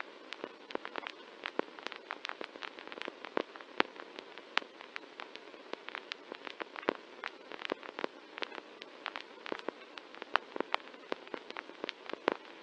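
Old-film soundtrack noise: a steady, thin hiss with no bass, broken by many irregular crackles and pops, like a worn black-and-white film print.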